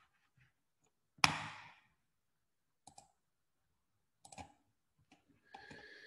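A few isolated sharp clicks: one loud click a little over a second in, then two fainter ones about a second and a half apart. A faint steady hiss starts near the end.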